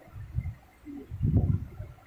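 Thick velvet prayer mat being unfolded and shaken open: two dull, low flaps of heavy cloth, the second longer and louder about a second in.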